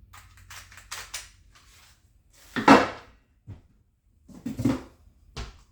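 Hard clicks and knocks from the chainsaw and its parts being handled: a run of light clicks, then a few louder knocks, the loudest about two and a half seconds in.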